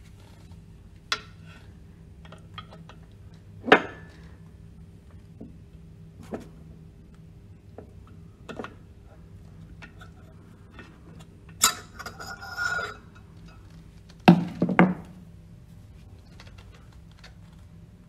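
Sharp metallic clinks and taps of steel parts and a steel rod against the pump shaft and housing while a pump's mechanical shaft seal is worked off by hand, over a faint steady hum. A short rattling scrape comes about twelve seconds in, and two heavier metal knocks about fourteen seconds in are the loudest.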